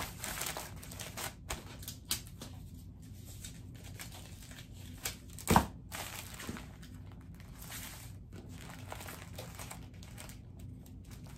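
Plastic poly mailer envelope crinkling and rustling as it is handled and folded, with one sharp tap about halfway through.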